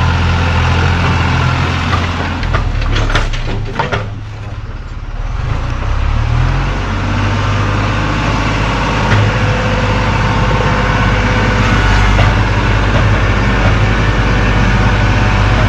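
Tractor engine running steadily with a low drone. It drops away briefly about four seconds in and picks up again, with a few sharp knocks just before the drop.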